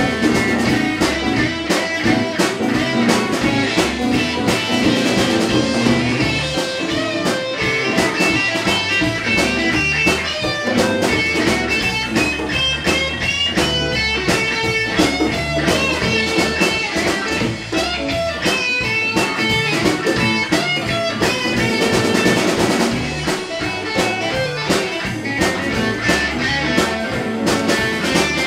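Live blues band playing an instrumental passage: electric guitar over drum kit, bass and congas.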